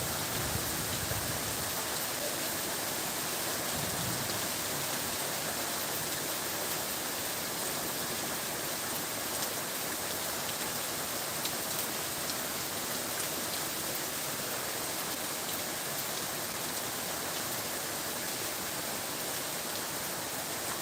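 Steady, continuous rain falling, an even hiss with scattered drop ticks. There is a brief low rumble in the first second.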